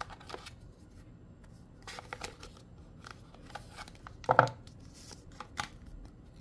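Hands handling phone-box packaging and its contents: light paper and cardboard rustles and small clicks, with one louder knock about four seconds in.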